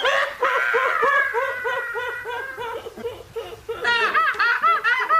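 Women laughing uncontrollably: rhythmic 'ha-ha' laughter about four peals a second, with a long high-pitched squeal held over it about a second in, then louder, higher peals near the end.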